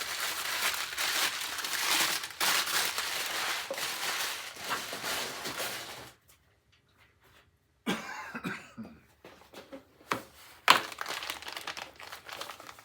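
Packaging of new parts crinkling as it is handled and unpacked for about six seconds. After a short pause come lighter rustles and small clicks, with one sharp click near the end.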